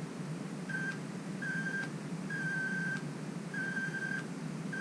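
High-pitched whine from a Ford 6.0 Powerstroke FICM (fuel injection control module) power module running at 48 V on a bench with resistor loads. The whine comes in short pulses about once a second, some longer than others. The owner doesn't know whether this sound is normal for the module.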